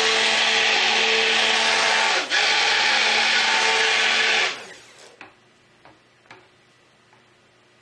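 Handheld stick blender running in a bucket of cold process soap batter, pulsed to bring the batter to emulsification: a steady motor whine that dips briefly about two seconds in and is switched off about four and a half seconds in. A few faint clicks follow.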